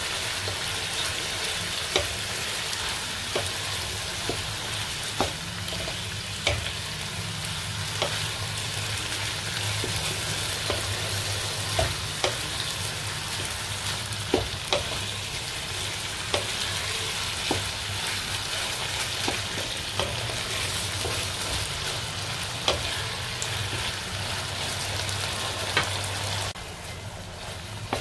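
Diced chicken and oyster sauce sizzling in a hot coated pan while a wooden spatula stir-fries them, knocking against the pan roughly every second or so. The sizzle drops off sharply shortly before the end.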